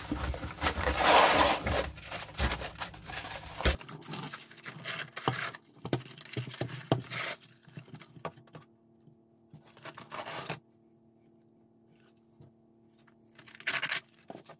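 Sheet of 80-grit PSA sandpaper being handled: paper rustling and scraping as it is pulled from its roll box and wrapped loosely around a cardboard drum, loudest about a second in, then scattered rustles. Twice later, short ripping sounds, the last as the backing liner is peeled off the adhesive.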